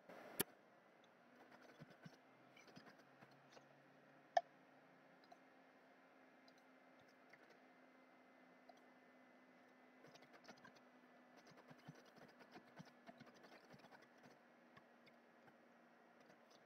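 Near silence with faint computer sounds: two sharp mouse clicks, about half a second and four seconds in, then a run of light keyboard typing from about ten to fourteen seconds in.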